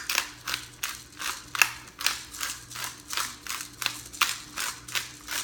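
Pepper mill being twisted by hand, a crisp grinding crunch repeated about three times a second.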